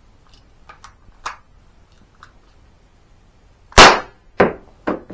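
A!CTION C96 Red9 cap-firing model gun: a few quiet clicks of handling, then, from a little over a second before the end, cap shots in quick succession about half a second apart, the third one softer.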